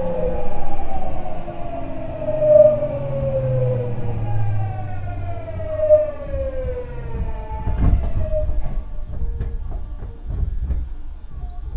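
Tokyu 9000 series train's Hitachi early-type GTO-VVFF inverter and traction motors whining under braking, heard inside the car: a tone that slides down in pitch, jumps back up and slides down again several times. It fades out about eight seconds in as the train comes almost to a stop, and a few low knocks follow.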